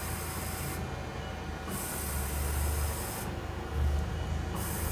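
The X-axis drive of a Southwestern Industries TRAK DPMSX3 CNC bed mill jogging the table, giving a low steady hum. A high hiss comes and goes several times.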